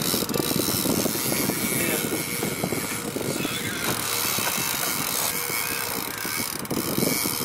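A steady motor drone, with wind buffeting the microphone in ragged low gusts.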